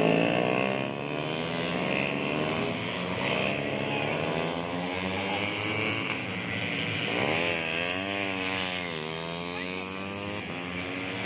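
Several 150cc four-stroke underbone racing motorcycles at high revs, their engine notes overlapping and gliding up and down as they accelerate, shift and pass; about seven seconds in, one engine note rises sharply and then wavers.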